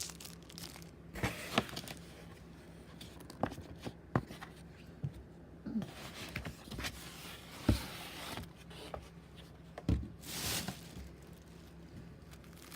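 Paper and plastic packaging being handled: crinkling and rustling with scattered light taps, and a louder rustling swish about ten seconds in.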